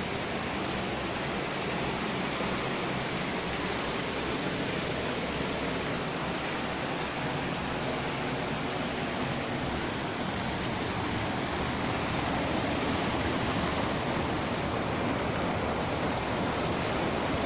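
Steady rushing of muddy floodwater pouring through a concrete bridge culvert and cascading over a rock ledge, a little louder near the end.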